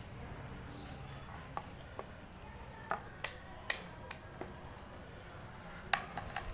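A handful of sharp, light clicks and knocks from a handheld digital multimeter being handled: set down on a hard table, its rotary range dial turned and its test-lead plugs pushed into the sockets. The loudest click comes about midway.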